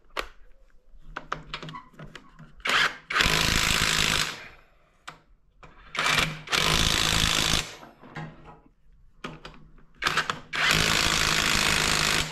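Impact wrench tightening bolts: three bursts of hammering, each a second or two long with the last the longest, and light clinks of metal between them.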